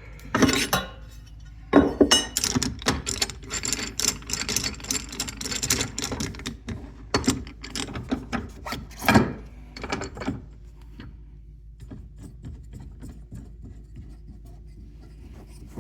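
Hand adjustments on a DeWalt DWS780 compound miter saw: irregular clicks, knocks and scraping as the sliding fence is loosened and moved and the work clamp is set, stopping about ten seconds in.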